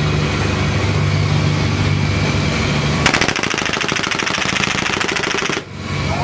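A boat engine drones steadily. About three seconds in, a long, rapid burst of machine-gun fire from a navy patrol boat runs for about two and a half seconds and cuts off suddenly.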